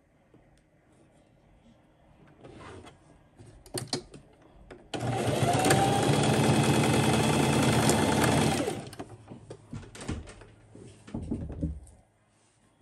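Singer sewing machine running steadily for about four seconds in the middle, stitching trim onto fabric, starting and stopping abruptly. Before and after it, fabric rustling and small clicks and knocks as the work is handled.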